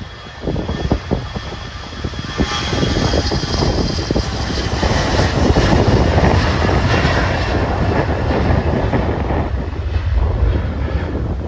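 The twin rear-mounted GE CF34 turbofan engines of a Mitsubishi CRJ-900LR regional jet at takeoff thrust during its departure roll. The engine noise grows louder about two seconds in and stays loud as the jet speeds down the runway.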